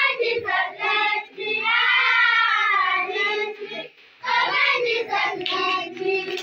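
Children singing, with one long held note near the middle and a short break a little past halfway.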